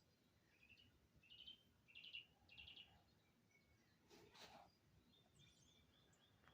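Faint songbird chirps: three short, rapid trilled chirp phrases in quick succession about a second in, then a brief scratchy sound around four seconds in, with a few more faint high chirps near the end.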